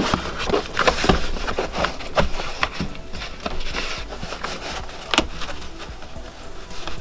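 Moulded car floor carpet being pushed and smoothed down onto a bare metal floor pan: scraping and rustling with scattered knocks, and one sharp click about five seconds in.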